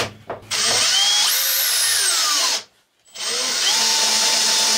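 Cordless drill driving a rivet nut setting tool to set a nut rivet into thin sheet metal, running in two bursts with a short pause about two and a half seconds in. The first burst's whine slides down in pitch as it loads up.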